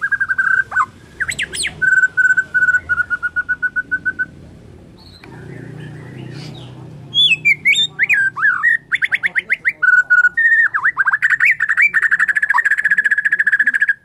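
White-rumped shama singing loudly: fast runs of repeated notes on one pitch, a pause of a few seconds, then varied whistled phrases with rising and falling sweeps, ending in a long rapid rattle.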